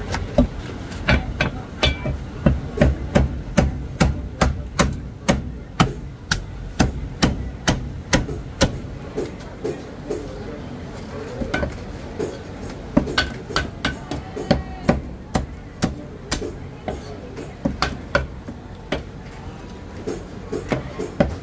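Heavy cleaver chopping roast meat on a wooden chopping block: a steady run of sharp chops, about two a second, easing off briefly in the middle.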